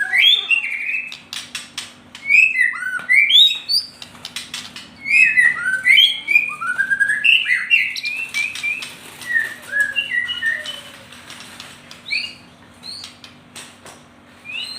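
Kept songbird singing a string of short chirps and quick rising and falling whistled notes, with sharp clicks between them.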